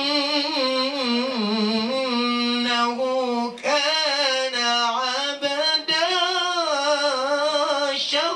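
A young man's voice reciting the Quran through a microphone in a melodic, drawn-out tajwid style, with long ornamented held notes. There are two short breaks for breath, about three and a half and six seconds in.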